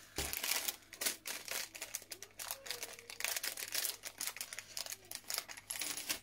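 Small plastic LEGO pieces clicking and rattling against each other as they are picked through and handled, a quick, uneven run of sharp clicks.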